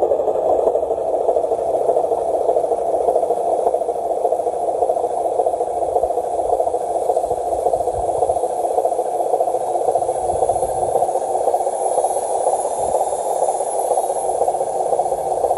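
A radio-controlled model dump truck's tipping motor running steadily as the bed lifts and the load of soil and brush slides out the back.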